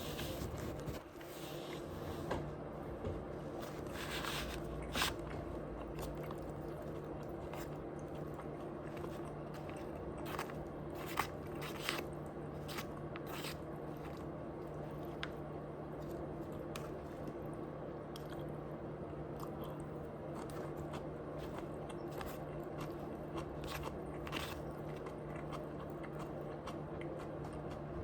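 Close-up eating sounds: a person biting, chewing and crunching food, with scattered crisp crunches that come thicker about four seconds in and again around ten to thirteen seconds in. A steady low hum runs underneath.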